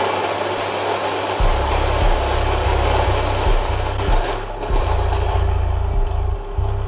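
Fellow Ode brew grinder's motor and 64 mm flat burrs grinding a 20 g dose of coffee beans at grind setting 5, a loud, steady grinding whir.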